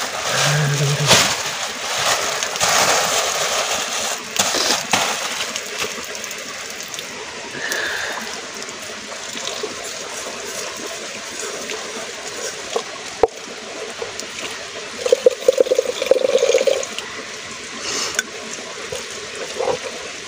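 Stream water running over rock while a hand rubs and swishes water inside an aluminium cooking pot being washed, with a louder stretch of quick swishing about fifteen seconds in.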